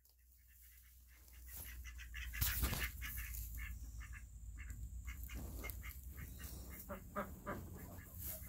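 Domestic ducks quacking faintly in a coop, with rustling and a couple of soft knocks as the phone is handled against clothing.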